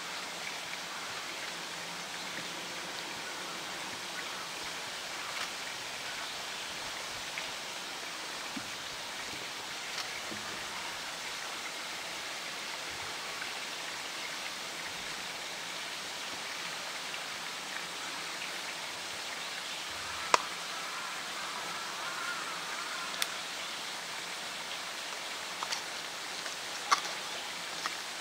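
Steady rush of running water throughout, with a few sharp clicks or knocks in the last third.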